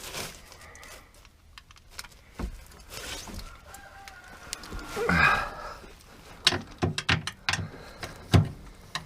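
A 7/16 socket wrench working on the RV step's mounting bolts: irregular metal clicks and knocks, with a brief squeak about five seconds in.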